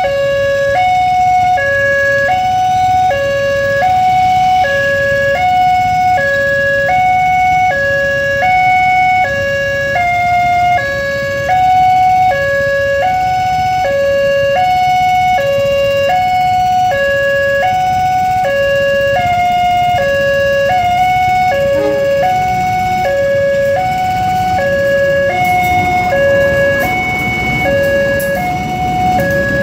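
Railway level-crossing alarm sounding an alternating two-tone electronic warning, high and low tones about half a second each, signalling an approaching train. In the last few seconds the rumble of a train headed by two diesel locomotives rises beneath it as the train reaches the crossing, with sharp clicks near the end.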